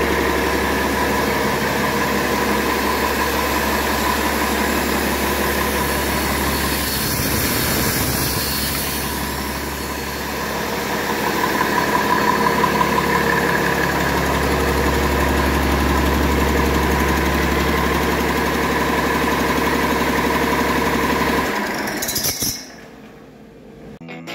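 2020 Cummins L9 inline-six diesel running steadily on an engine test stand during a test run, its sound cutting off about two seconds before the end.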